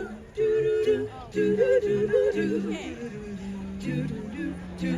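Vocal group singing in harmony: several voices holding long notes together, with short wavering runs in the middle.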